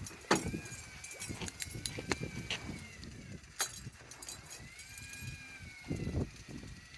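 Electric fishing reel's motor whining as it winches line in under the weight of a big halibut, its pitch slowly rising and falling with the load. Scattered clicks and knocks on the boat.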